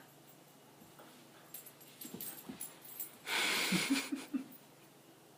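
A puppy fussing at a grooming brush: faint small sounds at first, then a loud breathy huff about three seconds in, followed by a few short, low cries.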